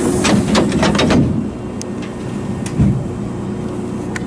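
Sliding passenger doors of a Hankyu commuter train closing: a quick clatter of clicks for about a second, then a single dull thump nearly three seconds in, over a steady low hum from the stopped train.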